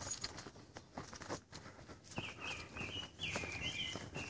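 Footsteps crunching along a dirt woodland trail at walking pace. A songbird sings a run of short high phrases from about halfway through.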